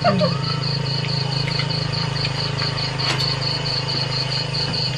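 Night crickets chirping in an even pulsing rhythm, about four pulses a second, over a steady low hum.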